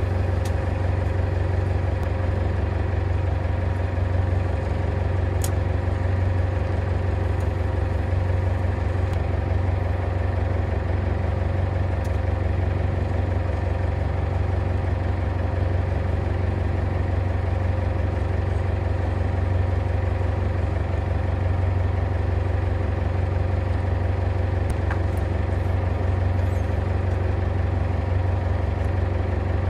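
Fishing boat's engine running steadily, a low, even hum that does not change.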